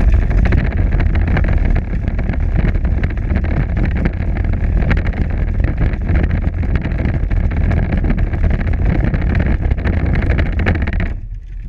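Power Wheels ride-on toy driving over a concrete sidewalk, heard up close from a camera mounted on it: the steady whine of its electric drive and gearbox mixed with the rattle of its plastic wheels on the pavement. The noise cuts off about eleven seconds in as the toy stops.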